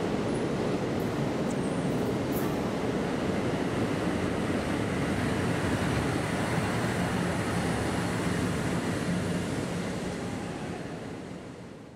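A locomotive running light, passing close by on the track: a steady rumble of wheels on rail with a low hum that grows plainer as it goes by, then fading away over the last couple of seconds.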